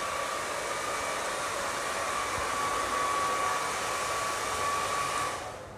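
Hair dryer running steadily, blowing wet paint on a painting dry: a rush of air with a thin whine. It switches off shortly before the end.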